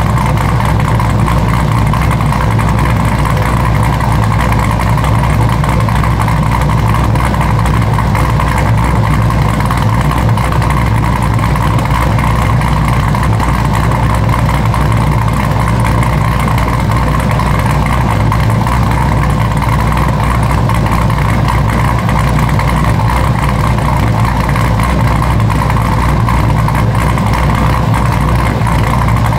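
Cammed fifth-generation Chevrolet Camaro SS's 6.2-litre V8, with a Texas Speed stage 4 camshaft and full bolt-ons, idling steadily with no revs.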